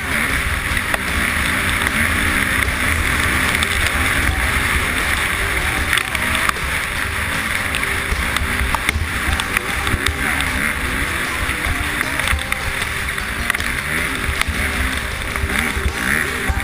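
Dirt bike engine running hard over rough trail, its pitch rising and falling with the throttle, heard through a helmet-mounted camera with wind rushing over the microphone.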